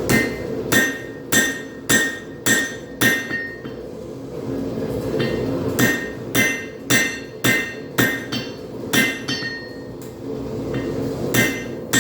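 Hand hammer striking a hot railroad spike on an anvil, each blow ringing briefly. About two blows a second: a run of six, a pause of about two seconds, a run of about nine, then another pause and two more blows near the end.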